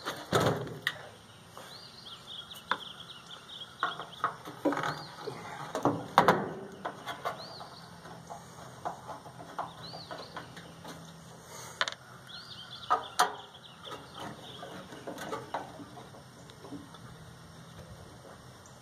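Scattered clanks, clicks and knocks of hand tools on the sheet-metal chassis of a microwave as its transformer is worked loose from underneath. Short chirps, like a small bird's, repeat faintly in the background for most of the stretch.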